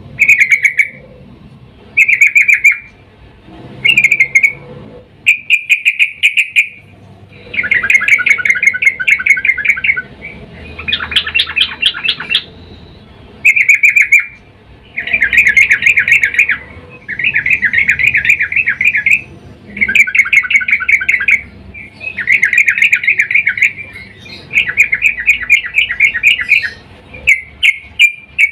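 Female yellow-vented bulbul (trucukan) giving repeated bursts of rapid, chattering calls: short bursts about every two seconds at first, then longer trains from about seven seconds in. These are a female in breeding mood calling to a male.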